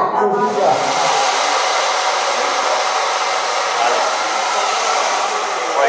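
Hair dryer blowing steadily, a loud even rush of air that cuts in just after the start.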